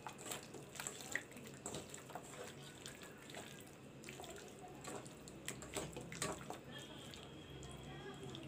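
Hands squishing and turning raw chicken pieces in a wet masala-and-oil marinade in a steel bowl: faint, uneven wet sounds with scattered light clicks.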